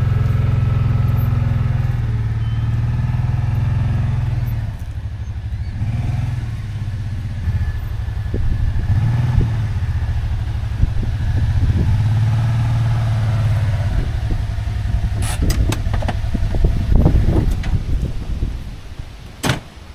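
Side-by-side utility vehicle's engine running, its hum rising and falling as it is driven. A few sharp knocks come in the last few seconds, and the engine sound drops away near the end.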